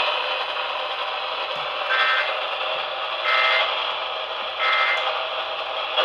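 Three short bursts of Emergency Alert System digital data tones, the SAME end-of-message code that closes an alert, about 1.3 s apart over steady radio static hiss.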